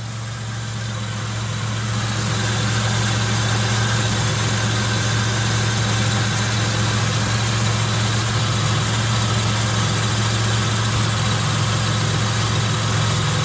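2006 Chevy Impala engine idling steadily with the A/C on and the new compressor clutch engaged, a steady hiss over the low engine hum; it grows slightly louder over the first couple of seconds, then holds level.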